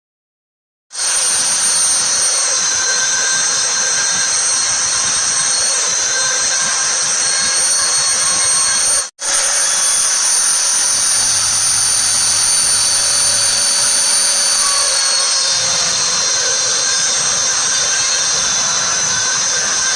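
Makita router spindle on a home-built CNC machine running at high speed with a steady high-pitched whine. It starts about a second in and cuts out briefly around the middle.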